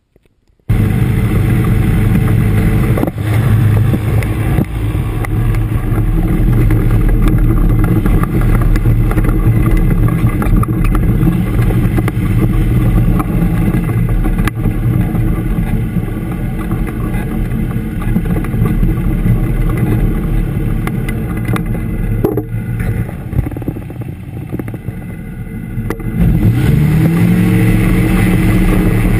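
Air Creation Tanarg ultralight trike's engine and propeller running steadily, heard close up from the seat. About 22 seconds in the revs drop back for a few seconds, then climb again near the end.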